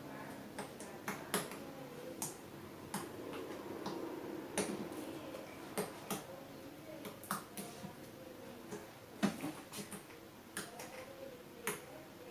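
Slime being squeezed and worked in the hands, giving irregular sharp clicks and pops, about one or two a second.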